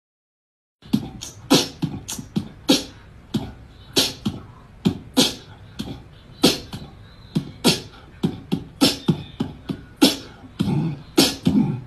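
Beatboxing: a steady beat of mouth-made kicks and snare-like clicks, about two hits a second with quick fills between, starting about a second in after silence.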